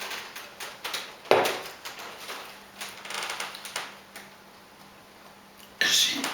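A woman burping on purpose between gulps of air, with small mouth clicks. A short loud belch comes about a second in, and another starts just before the end.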